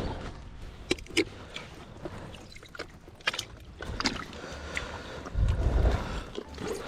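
Water splashing and sloshing around an angler's float tube as it moves through the water, with scattered sharp clicks and a louder low rumble near the end.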